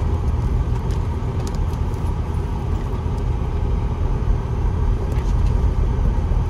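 Steady low rumble heard inside a car driving on a gravel road: tyre and engine noise, with a few faint light ticks.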